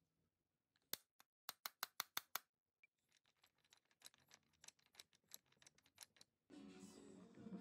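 A quick run of about eight sharp clicks, then a faster, fainter train of ticking as the wooden gear teeth of a handmade automata toy airplane mesh while its propeller spins. Background music comes in near the end.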